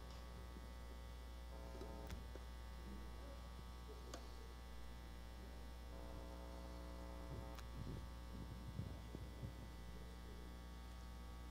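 Steady electrical mains hum in the microphone and sound system, with three faint clicks.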